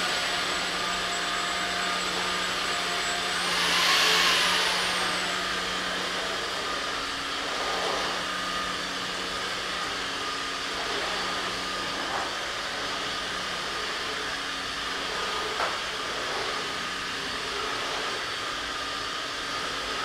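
Ultenic U16 Flex cordless stick vacuum running on eco mode over a wooden floor: a steady motor whine over a low hum. About four seconds in the whine briefly climbs in pitch and gets louder, then falls back to its steady note.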